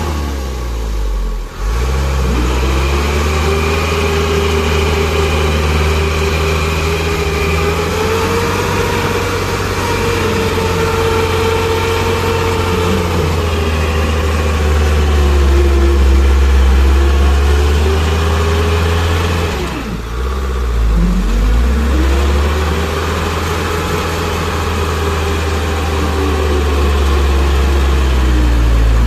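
Mitsubishi truck's diesel engine revving hard under heavy load as the truck churns through deep mud, the engine note rising and falling. The revs drop briefly about a second and a half in and again around twenty seconds, then climb again.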